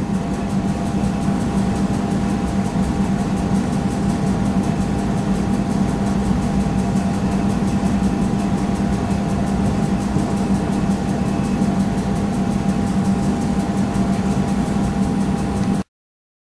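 Steady background machine hum and hiss, with a low drone and a faint higher steady tone; it cuts off suddenly about a second before the end.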